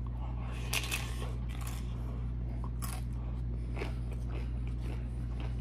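Close-up bite and chewing of a crisp fried corn tostada topped with shrimp ceviche: a scattering of sharp crunches about a second in and again near three and four seconds, over a steady low hum.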